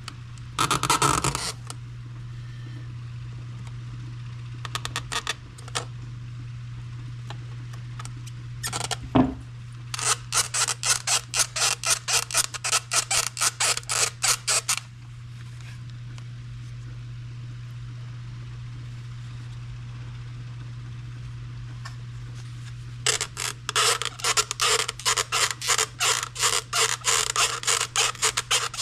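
Plastic fuel pump housing and filter foot being worked by hand against their locking tabs: two long runs of quick rhythmic clicking and creaking, about four a second, with a few single knocks, over a steady low hum.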